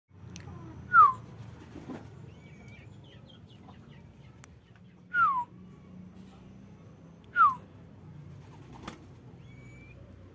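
Three short, loud whistled notes, each gliding downward, about a second in, around five seconds in and again two seconds later. Fainter small chirps come between them, over a steady low hum.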